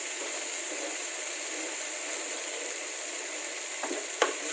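Pounded shallot, ginger and garlic paste sizzling steadily in plenty of hot oil in a pan, in the early frying stage before it turns golden. A single sharp click sounds near the end.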